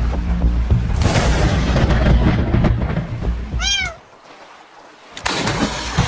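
Deep rumbling with a hiss over it, like a thunderstorm, and a single cat meow about three and a half seconds in that rises and then falls in pitch. Right after the meow the rumble drops away for about a second, then comes back.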